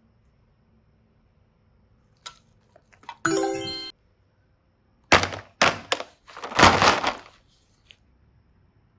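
A short ringing ding. About two seconds later come several loud, noisy crackling bursts.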